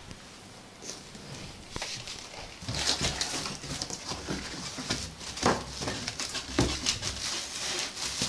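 Cardboard box being opened by hand: a few clicks at first, then from about three seconds in a continuous crackly rustling and scraping of cardboard flaps and foam packing being handled.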